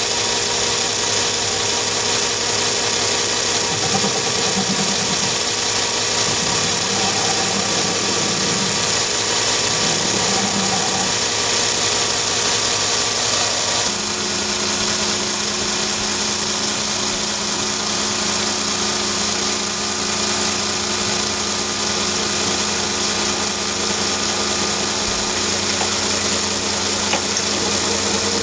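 Metal lathe running steadily with its spindle turning, the motor's hum overlaid by a steady high-pitched whine. The machine's tones shift abruptly about halfway through.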